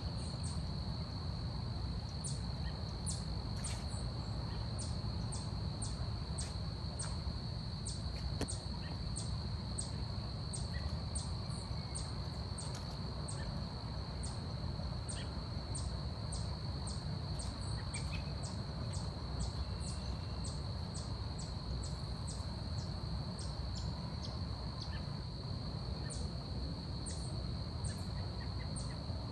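Forest ambience: a steady high-pitched insect trill runs throughout, with short, very high chirps or ticks repeating about one to two times a second over a steady low rumble.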